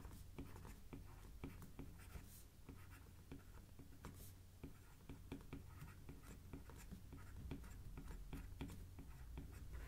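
Faint, irregular tapping and scratching of a stylus writing on a tablet screen, with many small clicks as the letters are formed.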